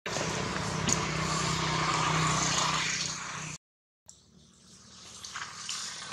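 A motor vehicle's engine running, a steady mechanical noise that cuts off abruptly about three and a half seconds in. After a brief silent gap, a quieter noise with a few light clicks swells back in.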